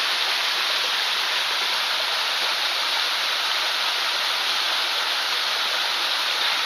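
Steady rush of a mountain stream's cascades and waterfalls, an even hiss of white water.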